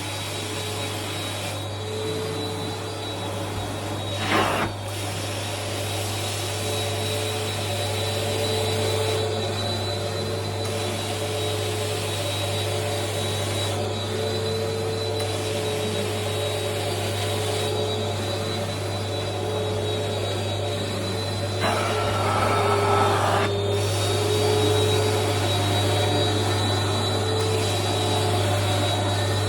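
Hot water extraction carpet cleaning machine running steadily, its vacuum motor giving a steady drone with a high whine over it. A knock about four seconds in, and a short louder rush of air and water around twenty-two seconds in.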